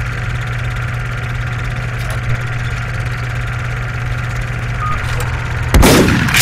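Intro sound effects: a steady low drone, then near the end a sudden loud boom like a rifle shot, with a tail that falls in pitch.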